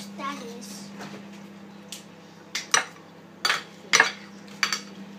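Metal spoon scraping and clinking against a china bowl while scooping rice, several short sharp scrapes coming in a cluster in the second half, over a steady low hum.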